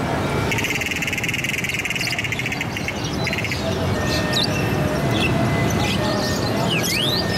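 Many caged songbirds at a bird market chirping and whistling at once. A dense buzzing trill starts about half a second in and lasts some two seconds; short rising whistled calls follow in the second half. All of it sits over a steady low background hubbub.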